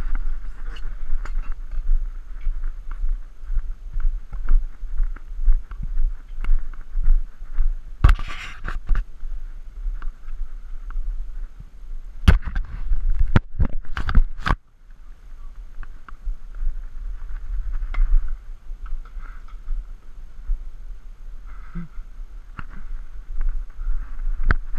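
Wind buffeting the camera's microphone, with a few sharp knocks and clatters: one about a third of the way in and a short cluster around halfway.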